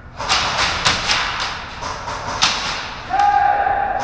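Airsoft gunfire: a quick, irregular run of sharp cracks and thuds from shots and BB hits. About three seconds in, a loud steady held tone starts and carries on.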